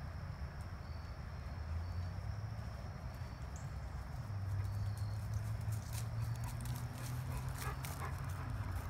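Low steady hum of a John Deere Gator utility vehicle's engine idling, a little stronger from about four seconds in, with a few light clicks and rustles in the last few seconds.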